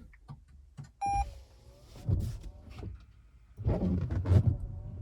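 A short electronic beep about a second in, followed by dull knocks and rumbling handling noises.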